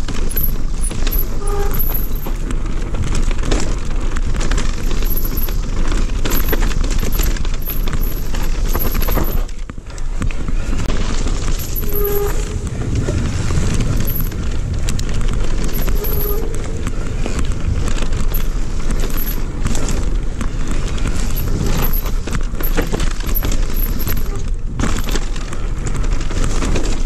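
Mountain bike ridden fast down a dirt singletrack: wind buffeting the camera microphone over the rattle and clatter of the bike and tyres on the rough trail, with a brief dip about ten seconds in.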